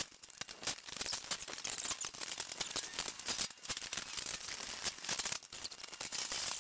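Irregular light clicking and rattling of small metal parts being handled during steel storage shed assembly.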